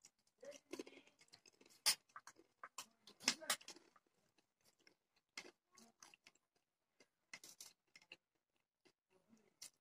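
People eating with forks: chewing and crunching of snacks and forks clicking on a plate, heard as scattered short sharp clicks, the loudest about two and three and a half seconds in.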